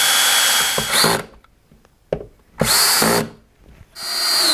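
Power drill running at steady speed with a high motor whine as it bores into the wall at a marked spot, stopping about a second in. A short burst of drilling follows about two seconds later, and near the end the drill starts up again.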